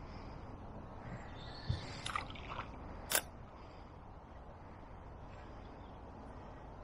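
A lure cast on a fishing rod: a few small knocks and clicks from the rod and reel, the lure landing in the river, and one sharp click about three seconds in that is the loudest sound. Steady wind rumble on the head-mounted microphone underneath.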